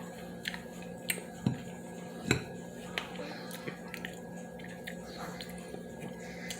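Close-miked eating sounds: a handful of sharp clicks and taps of cutlery against a plate, the loudest a little past two seconds in, over a steady faint hum.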